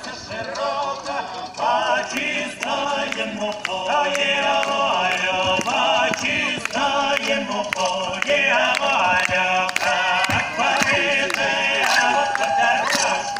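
A song sung by a group of voices over a steady rhythmic beat.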